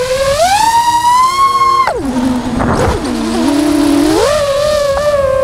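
FPV quadcopter's propeller motors whining, the pitch climbing under throttle, then dropping steeply about two seconds in as the throttle is cut, and climbing back up about four seconds in.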